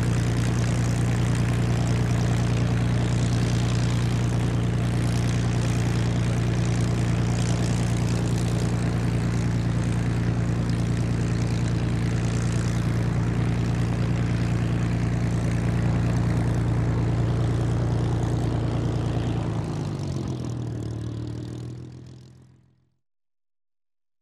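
Spitfire's Rolls-Royce Merlin V12 aero engine running steadily with the propeller turning. Its pitch drops about twenty seconds in as it throttles back, and the sound fades out a few seconds later.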